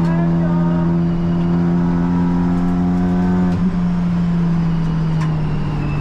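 Honda Civic Type R (FL5) race car's engine running at a steady high pitch, with a brief dip and change about three and a half seconds in.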